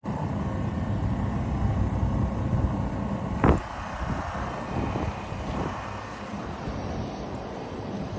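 A steady low rumble, with one sharp knock about three and a half seconds in, after which it is a little quieter.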